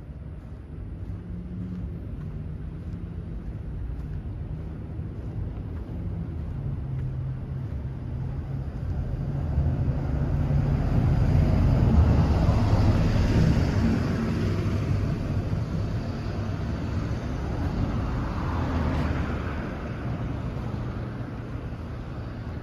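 Road traffic: a motor vehicle's engine hum runs steadily, and vehicle noise swells and fades about halfway through, with a second smaller swell near the end, like vehicles passing close by.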